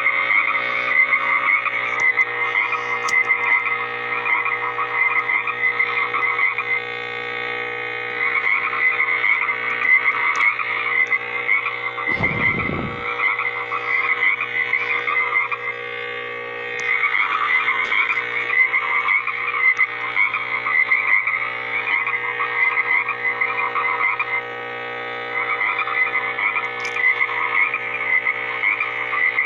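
A chorus of frogs croaking in rapid trills, in bouts with brief pauses, over a steady faint hum. About twelve seconds in, a short low sound drops in pitch.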